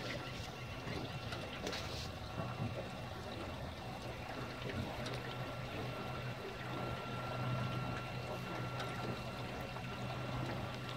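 Speedboat's outboard motor running slowly, a steady low hum, with water trickling and lapping along the hull.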